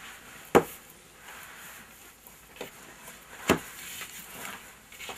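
Sharp knocks from kitchen work at a wooden board: a loud one about half a second in, a faint one near the middle, and another loud one about three and a half seconds in.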